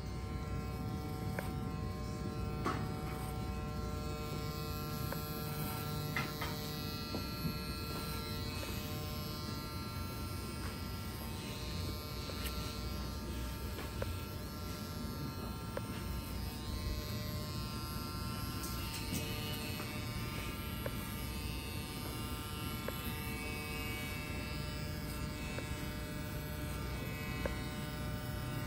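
Electric hair clippers running with a steady buzz, with a few small clicks here and there.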